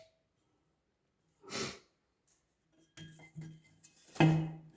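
Background music with a repeating pattern of pitched notes, about two to three a second, coming in about three seconds in, with the loudest note near the end. Before it there is a single short rustle.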